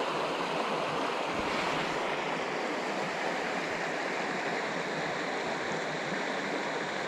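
Small mountain creek running steadily, a constant wash of flowing water, with one soft low bump about a second and a half in.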